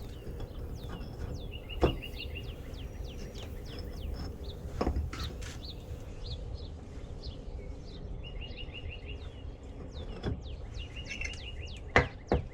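Songbirds chirping: many short falling chirps and a repeated fast trill, over a low steady background. A few sharp knocks stand out, the loudest near the end.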